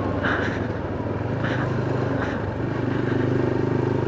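Motorcycle engine running on the move, easing off for a couple of seconds and then picking up again near the end, with a few brief hissy sounds over it.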